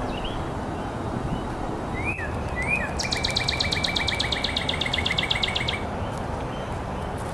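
A small songbird calling: two short rising chirps about two seconds in, then a fast trill of about eight notes a second lasting nearly three seconds, over a steady low background rumble.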